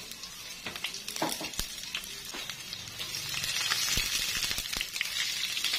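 Chopped red onions sizzling in hot oil in a nonstick pan as they are sautéed, with scattered clicks and scrapes of a wooden spatula stirring them. The sizzle grows a little louder in the second half.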